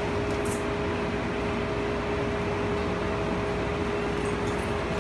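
Steady mechanical hum and whir inside a BART Oakland Airport Connector people-mover car, with two constant high tones over an even rush of noise, like the car's ventilation fans running.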